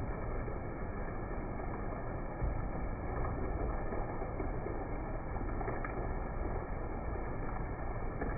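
Heavy rain falling steadily, an even dense rush with a few faint ticks of drops.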